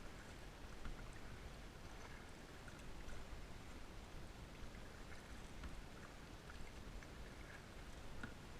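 Faint water sounds around a kayak: light drips and small splashes with scattered soft ticks.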